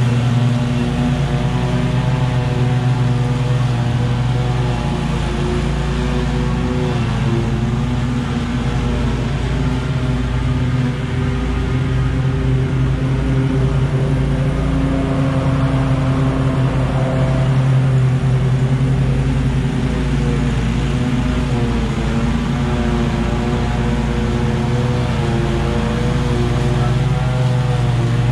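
Commercial lawn mower engine running steadily at mowing speed while cutting tall overgrown grass, its pitch wavering slightly under the load.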